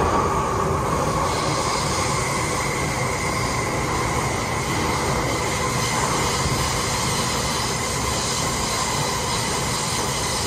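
MTR M-Train electric multiple unit running at speed through a tunnel, heard from inside the car: a steady loud rumble of wheels and running gear on the rails, with a thin high whine held over it.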